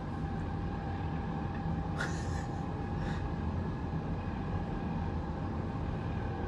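Steady road and engine noise from a car driving in traffic, with two brief faint hisses about two and three seconds in.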